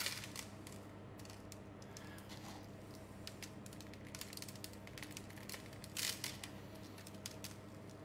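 Faint, scattered clicks and crackles of loose caramelized cocoa nibs rattling on an aluminium tray as a chocolate cake is pressed and rolled into them, over a steady low hum. A louder cluster of crackles comes about six seconds in.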